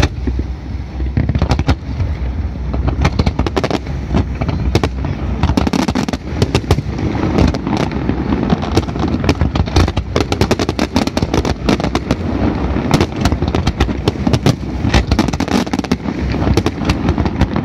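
Fireworks display: a dense, rapid barrage of bangs and crackles from aerial shells bursting overhead, thickening about a second in and running on without a break.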